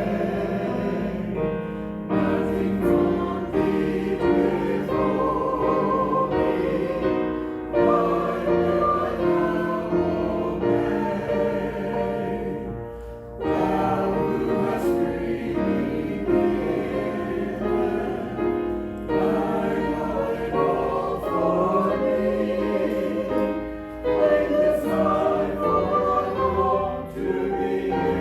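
Many voices singing a hymn together, with short pauses between phrases.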